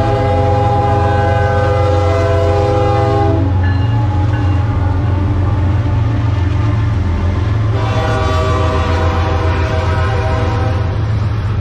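Diesel freight locomotive's air horn sounding two long blasts, the first about three and a half seconds and the second starting about eight seconds in, over the steady low rumble of the locomotives' diesel engines.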